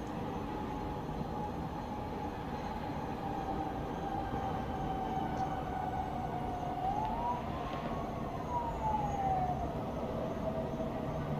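A distant emergency siren holding a steady note, then rising once and falling away about two-thirds of the way through, over a low, steady rumble of town traffic.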